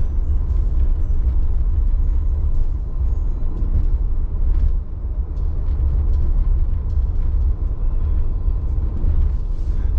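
Steady low rumble of tyre and road noise heard inside the cabin of a Tesla electric car driving along a road.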